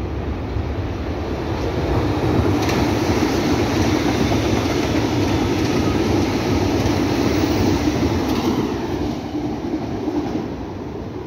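Berlin U-Bahn small-profile train on line U2 passing close by on an open track: wheels on the rails and the running gear rumbling. The sound swells as the train approaches, is loudest for several seconds as it goes by, and fades near the end as it moves away.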